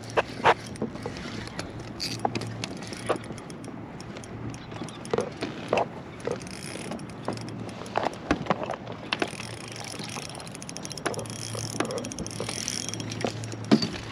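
Fishing reel cranking and ratcheting as a hooked bass is reeled in from a kayak, with scattered sharp clicks and knocks throughout.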